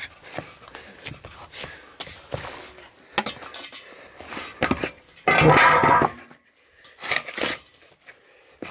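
Dough being kneaded by hand in a large stainless-steel bowl: irregular soft slaps, squelches and scrapes, with the bowl knocking and scraping. A much louder pitched sound lasting almost a second comes a little past halfway.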